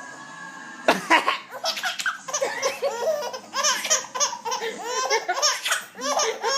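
Baby laughing in a run of short, bouncy belly laughs, set off by a sharp cough about a second in, with another cough near the end.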